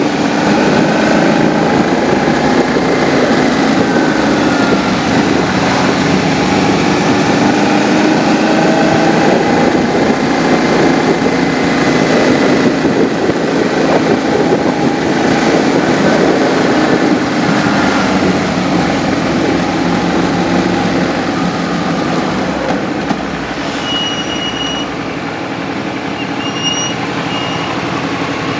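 Motorcycle engine running under way with wind and road noise, easing off and settling toward an idle near the end as the bike comes to a stop. Two short high beeps sound near the end.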